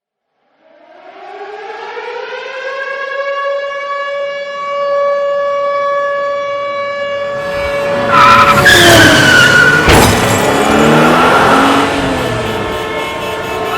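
A warning siren winding up from silence to a steady high wail. About seven to eight seconds in, a louder mix of noise and wavering, bending tones joins in and drowns it out.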